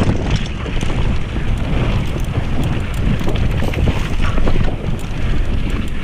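Wind buffeting the camera microphone as a mountain bike rides fast down a dirt trail, with the tyres rolling over dirt and stones and the bike rattling in many small clicks and knocks.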